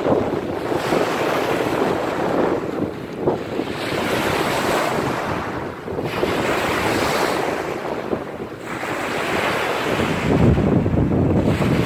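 Small lake waves breaking and washing up a pebble shore, surging in every two to three seconds. Wind buffets the microphone throughout, with a heavy rumble near the end.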